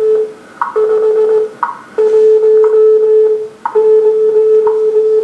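Recorded WWV time-signal broadcast playing through a 1937 Sears Silvertone tube radio's speaker. A steady audio tone breaks off briefly a few times, with sharp second ticks about once a second.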